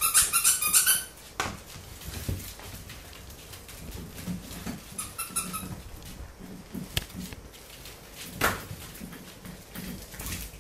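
Pembroke Welsh corgi puppies at play on a hardwood floor. A burst of rapid high-pitched squeaks comes right at the start and a shorter one about five seconds in, with a few sharp knocks in between.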